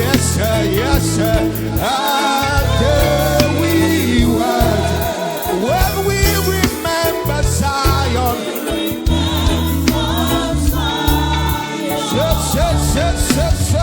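Live gospel praise music: voices singing over a band, with a stepping bass line and cymbals.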